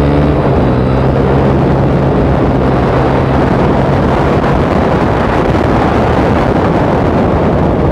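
Motorcycle engine running steadily while riding along at speed, mixed with heavy wind rush on the microphone. The engine's steady hum fades under the wind noise about halfway through.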